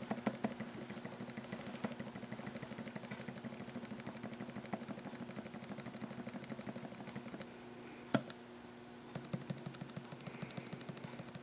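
Rapid, even clicking from the StepX-3000's touchscreen control panel as a pressure set-point button is held and the value counts up. The clicking stops a little past halfway, with one louder click as the other setting is selected, then resumes near the end. A low steady hum runs underneath.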